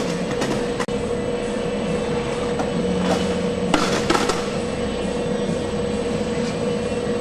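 Steady running noise of packaging-line machinery, a constant rumble with a steady hum. A few short clicks come through about three to four seconds in.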